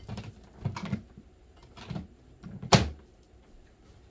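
Plastic toy baking tray and play-kitchen pieces being handled: a few light knocks and clatters, with one sharp knock about three seconds in.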